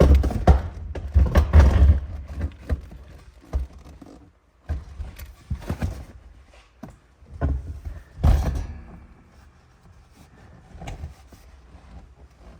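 Knocks and thumps of hard tools and parts being handled and set down, loudest in the first two seconds and again about eight seconds in, with scattered lighter clicks between.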